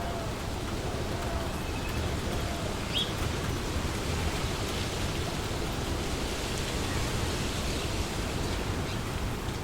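Wind blowing through trees: a steady rustling hiss of leaves that swells a little in the middle, with one short bird chirp about three seconds in.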